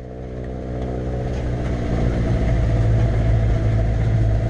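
Road vehicle engine running steadily with a low hum, fading in over the first two seconds.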